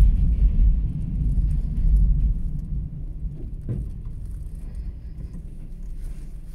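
Low rumble of a car driving slowly, heard from inside its cabin, dying down after about two and a half seconds as it stops behind a refuse truck. A steady low engine hum is left, with a sharp clack about three and a half seconds in.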